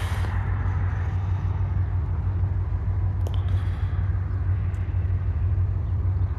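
Diesel engine of a Conrail freight locomotive running with a steady low rumble, the train getting under way from a dead stop.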